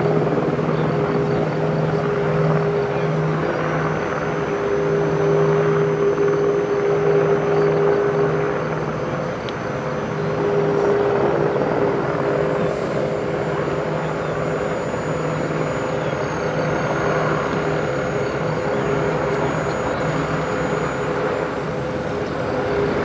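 Steady drone of aircraft engines, a low hum under a higher held tone, with a faint high whistle over it for much of the time.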